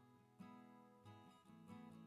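Quiet background music of plucked acoustic guitar, a new note or chord every half second or so.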